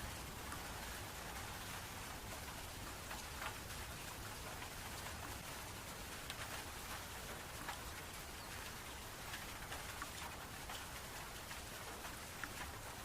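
Steady rain falling, with scattered separate drops ticking on a surface.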